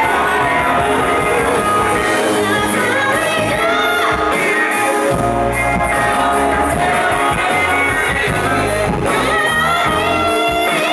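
Live band playing, with vocalists singing over electric guitar, bass and drums.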